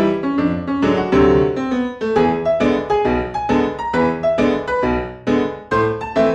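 Background piano music, a quick run of notes.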